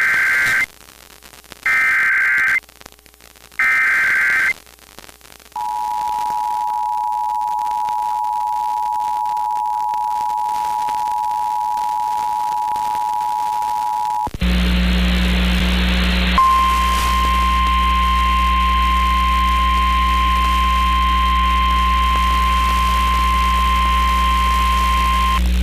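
Emergency Alert System alert tones. Three short bursts of SAME header data come first. The two-tone attention signal then holds steady for about nine seconds, followed by about two seconds of static with hum. Last comes a single steady alert tone with hum under it, the Weather Radio warning tone.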